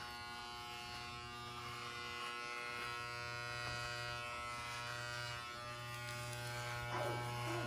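Wahl electric shaver buzzing steadily as it trims hair close to a shaved head.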